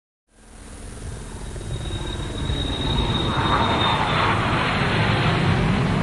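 Logo-animation sound effect: a deep rumbling whoosh that swells up out of silence and grows louder over the first three seconds, with a thin high whistle that fades out about four seconds in.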